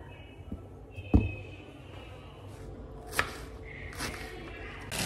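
Kitchen knife and vegetables knocking on a plastic cutting board: a few separate knocks, the loudest about a second in, and a sharper click about three seconds in.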